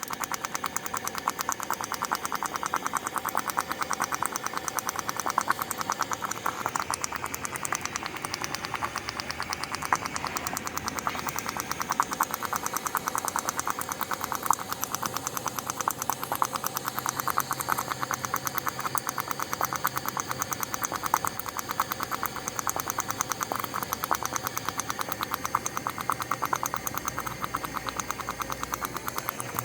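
A glowing-hot ball sitting in school glue, the glue boiling against it in a rapid, steady sputter of tiny pops: the fart-like sound it is known for.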